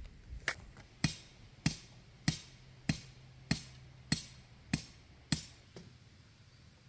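Hammer driving a nail: about ten steady blows, one every half second or so, the last one lighter.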